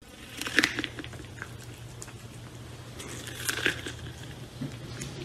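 A cat biting and chewing kernels off a cob of corn close to a microphone: a series of crunches, loudest about half a second in and again about three and a half seconds in, over a low steady hum.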